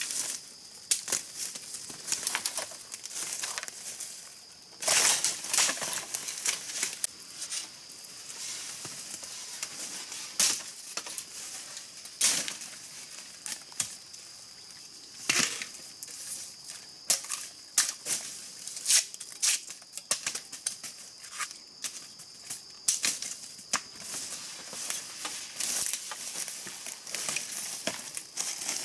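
Irregular rustling, snapping and crackling of leafy forest vegetation being handled and pushed through, loudest about five seconds in, over a steady high-pitched insect drone.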